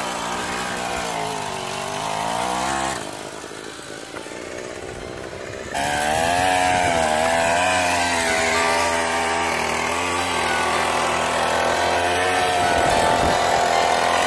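27cc Troy-Bilt weed eater two-stroke engine running under way, driving the bike's rear tire through a socket pressed against it, its pitch rising and falling with the throttle. The engine is one the owner says badly needs a tune. It drops quieter about three seconds in and comes back louder about six seconds in.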